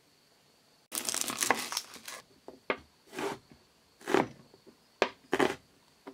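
A kitchen knife slicing through a raw onion on a wooden chopping board, starting about a second in: a dense crackling run of cuts, then a series of separate crisp cuts, each a short crunch.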